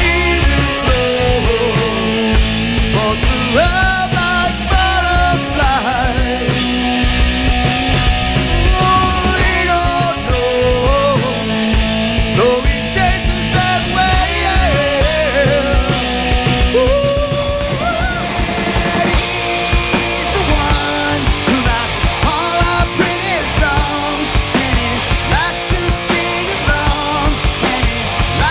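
Rock band music: electric guitar and drum kit, with a lead line bending up and down in pitch.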